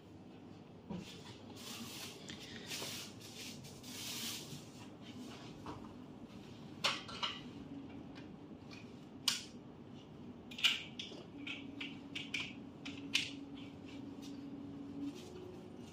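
Fabric rustling and plastic clicking as a BS10022 bed rail is assembled by hand: the fabric panel is pulled over the frame in the first few seconds, then several sharp clicks and knocks as its plastic brackets and clips are fitted. A faint steady hum sits underneath.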